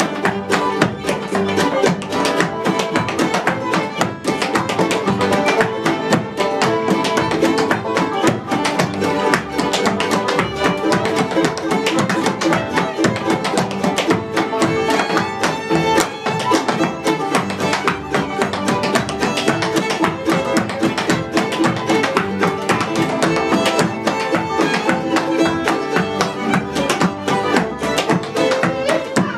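A string band playing an instrumental passage, with picked guitar and fiddle.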